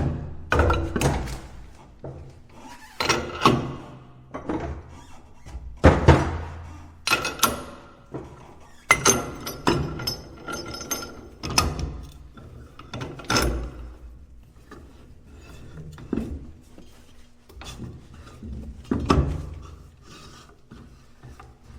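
Work at a wheel balancing machine: an irregular series of metal clanks and thunks as the wheel and clamping parts are handled, several strikes ringing briefly, over a faint low hum.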